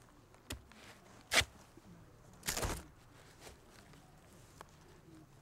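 Knife cutting through a raw taro corm: two sharp clicks within the first second and a half, then a short crunch about two and a half seconds in, followed by a few faint ticks.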